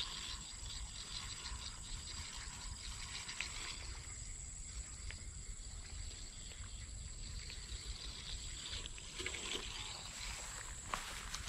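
Spinning fishing reel being cranked to wind in line: a steady fine mechanical ticking, with a few sharper clicks about nine seconds in.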